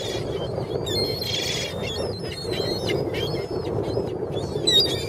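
A flock of gulls calling, many short overlapping cries that slide in pitch, thickest about a second and a half in and again near the end, over a steady low rush.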